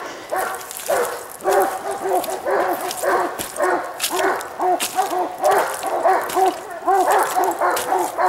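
Coonhound barking over and over in a steady rhythm, about three barks a second.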